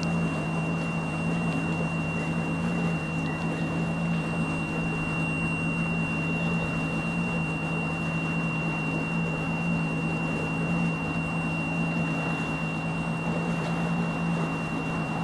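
Outboard motor of a small boat running slowly, a steady low hum with a thin steady high whine over it.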